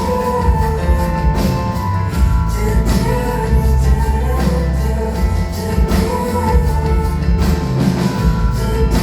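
Live band music with a woman singing, over heavy bass and a steady drum beat.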